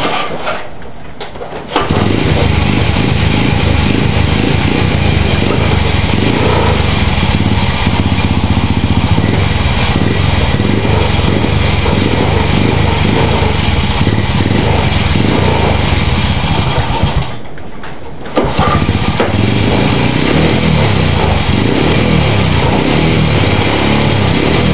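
A small engine catches about two seconds in and runs at a steady fast idle after a cold start. The sound drops out for about a second two-thirds of the way through, then comes back at the same idle.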